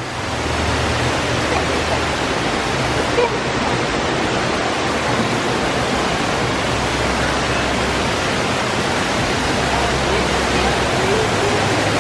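Fountain water splashing and rushing steadily, a constant hiss with no breaks.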